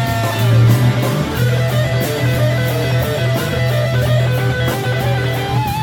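Hertom THV Vintage electric guitar playing a bluesy rock line with sustained, wavering notes over a backing of bass and drums.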